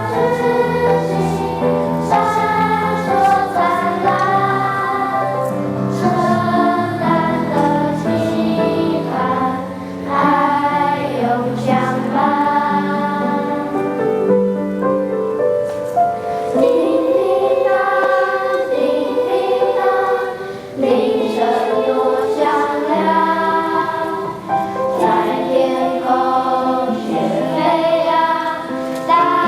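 Choir singing in several parts, with sustained notes and short breaths between phrases about ten and twenty seconds in.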